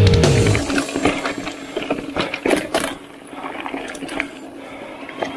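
A music track drops away with a falling pitch in the first half second. Then an electric mountain bike rattles and clicks over rough trail, with fast irregular sharp knocks from the bike over a faint steady low hum.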